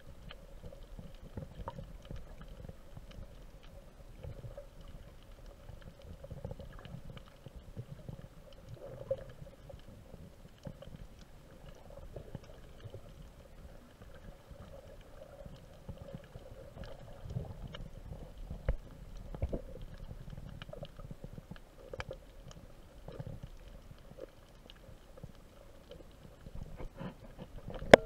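Muffled underwater ambience picked up by a camera submerged in its housing: an uneven low rumble of moving water with scattered faint clicks and a steady faint hum.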